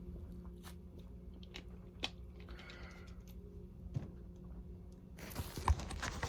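Mouth sounds of a person drinking or eating: small wet clicks and swallows over a steady low hum, with a louder breathy rush about a second before the end.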